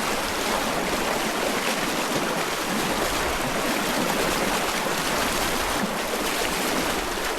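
River water rushing steadily, a constant hiss of flowing water.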